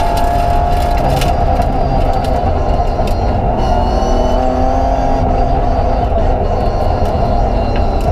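BMW 325 Group A rally car's straight-six engine running hard under load, heard from inside the cabin, its note rising and falling with the throttle. A few sharp clicks come about a second in.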